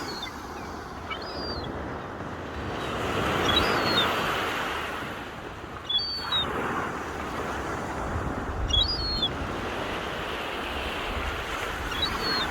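Sea waves washing onto the shore in slow surges that swell and fade every few seconds. A bird gives short, high chirps about every two seconds throughout, and there is a low rumble of wind on the microphone.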